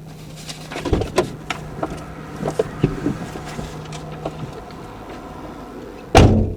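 Scattered clicks and knocks over a low steady hum that stops about four and a half seconds in, then one loud thud near the end.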